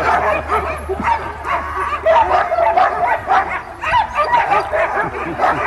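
Many sled dogs barking, yipping and whining at once, a dense overlapping chorus of short excited calls from a dog yard, over a steady low rumble.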